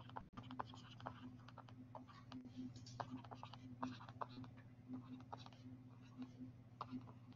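Stylus tapping and scratching on a tablet screen in handwriting, a quick irregular run of faint clicks and short scratchy strokes over a steady low hum.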